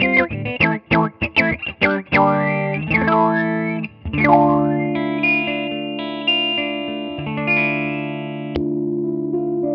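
Electric guitar played through an Analog Man Block Logo envelope filter pedal, giving an auto-wah. Quick picked notes each get a wah-like filter sweep. About two seconds in, strummed chords glide in tone, then settle into ringing, sustained chords from about four seconds in.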